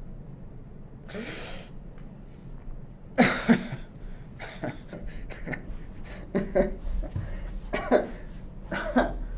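A man breathes out hard about a second in, then lets out a run of short, breathy laughs, roughly one a second, the loudest pair a little after three seconds in.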